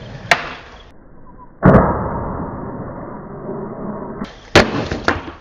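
Skateboard on a metal stair handrail: a sharp clack, then about a second and a half in a loud hit followed by a long scraping noise that fades over about two and a half seconds, then another sharp crack near the end.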